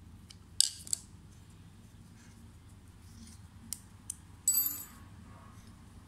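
Small metal parts of a Look Keo Blade Carbon pedal and its spindle being handled: a few sharp metallic clicks, then a brief ringing metallic clatter near the end.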